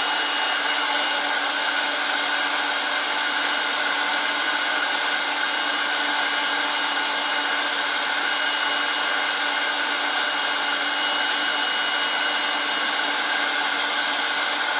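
Small electric blower running steadily on a homemade forge: an even rush of air with a steady motor whine.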